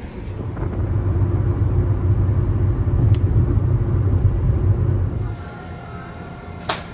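Low rumble of a vehicle on the road with a steady hum in it, dropping away abruptly about five seconds in. A single sharp click near the end.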